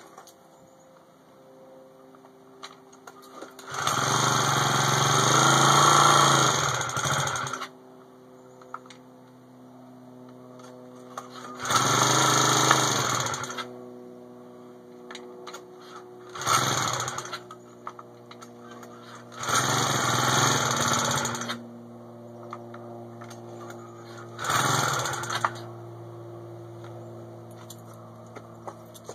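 Grubee/Huaseng 49cc four-stroke bicycle engine firing in five bursts of one to four seconds, each dropping back to a faint low hum, as it fails to start and run properly; the owner suspects a gunked-up carburetor.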